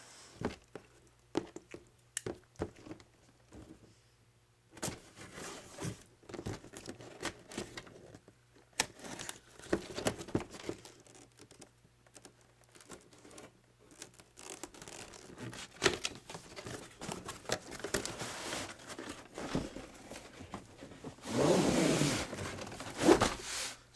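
Cardboard toy box being opened and handled: scattered clicks, taps and rustles of cardboard, with a longer, louder stretch of cardboard scraping near the end as the inner tray slides out.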